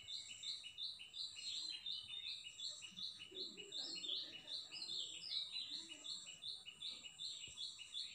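Birds chirping continuously: short high notes repeating quickly, about four or five a second, over a steady thin high-pitched tone.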